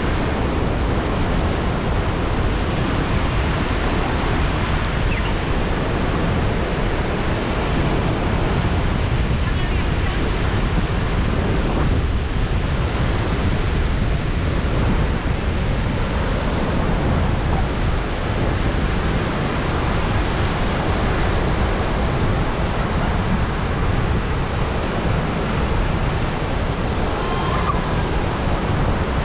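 Ocean surf washing onto a beach in a steady rush, with wind rumbling on the microphone.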